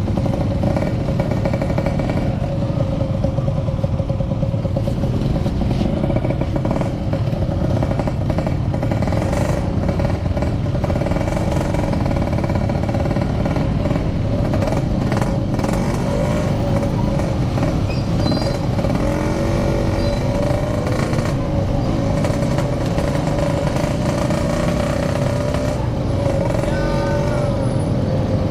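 Yamaha RX King 135cc two-stroke single-cylinder engine running steadily while riding, heard through a Packing Power aftermarket exhaust, with wind rumble on the mic.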